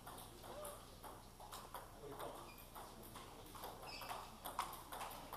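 Light, irregular clicks of celluloid table tennis balls striking tables and bats, several rallies on different tables overlapping in a large sports hall.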